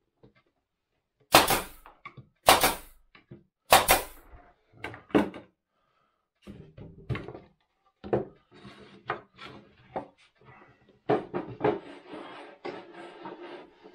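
Staple gun driving staples into wooden boards: three loud, sharp shots a little over a second apart, then a weaker one, followed by lighter knocking and clatter of the wooden pieces being handled and set down.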